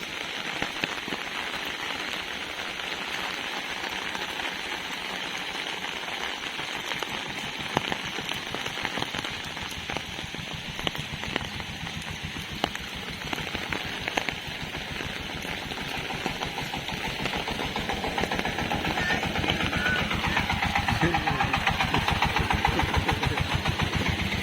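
Heavy rain on an umbrella: a dense, rapid patter of drops. Over the last several seconds an engine grows louder.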